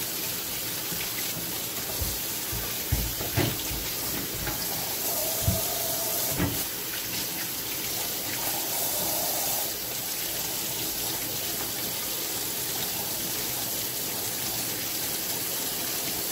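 Water running steadily from a kitchen tap, with a few short knocks of kitchen utensils between about three and six seconds in.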